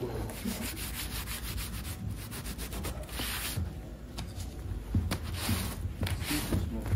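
Rubbing and scraping strokes over a veneered wooden tabletop, coming in uneven strokes, with the strongest strokes a little after three seconds in and again near the end.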